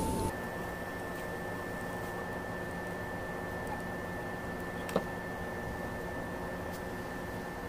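Steady background hum with a thin high whine over a low hiss, and a single sharp click about five seconds in.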